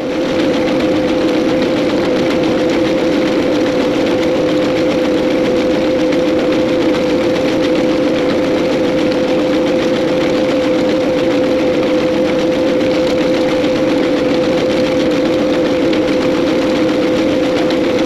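Hydrostatic tractor's engine running steadily under load as it pulls a small square baler picking up a windrow of hay, mixed with the baler's working mechanism. It makes a loud, even hum with one held tone.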